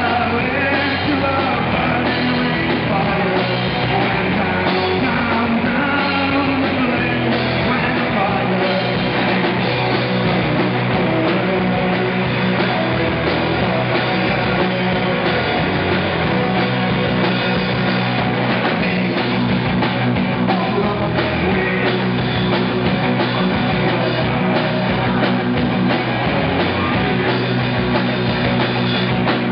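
A live rock band playing: electric guitars, bass guitar and drum kit, with a singer at the microphone, loud and continuous.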